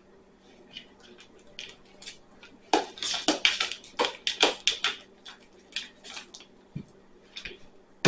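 Homemade slime being mixed in a bowl: a dense flurry of quick sticky clicks and knocks starting about three seconds in, thinning out to scattered ones after about six seconds.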